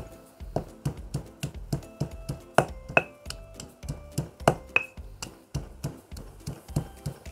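Heavy stone pestle pounding garlic cloves and black pepper in a stone mortar: dull, regular knocks about three a second, a few harder strikes near the middle. Light background music plays underneath.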